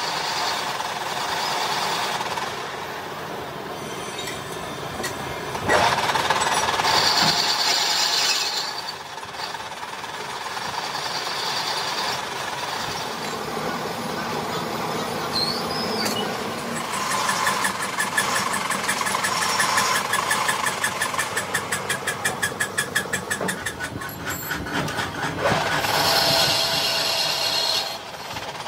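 Crankshaft factory machinery running, with metallic clatter and a loud onset about six seconds in, then a fast, even rattle for several seconds past the middle.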